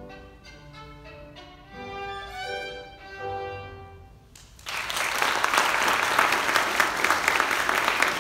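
Solo violin playing the closing notes of a piece, ending about four seconds in. Then audience applause starts suddenly and is the loudest sound.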